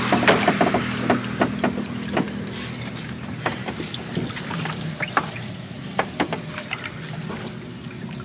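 Small boat on the water: a steady low hum that fades slowly, with many sharp knocks and clicks scattered through it.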